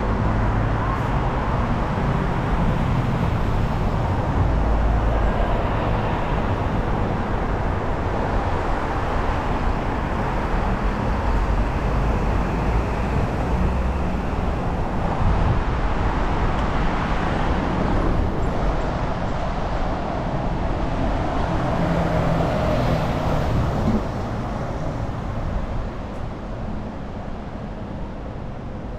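Busy city street traffic: a steady wash of passing cars and engines with a low rumble. It drops sharply in level about 24 seconds in.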